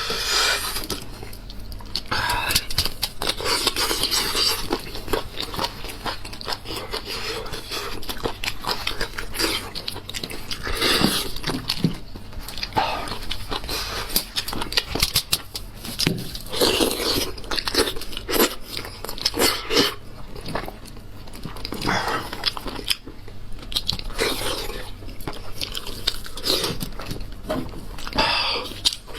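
Close-miked eating of spiced sheep's head: a continuous run of chewing and biting with crunches, in irregular clicks and crackles.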